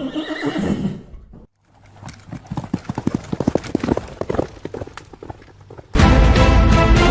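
A short animal call, then a run of quick, irregular hoofbeats like a hoofed animal walking or trotting. Background music comes back in near the end.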